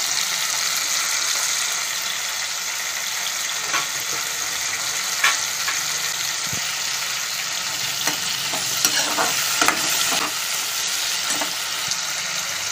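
Tomato pieces, green chillies and cumin seeds sizzling steadily in hot oil in a kadai. A steel spoon clicks and scrapes against the pan a few times, mostly in the second half.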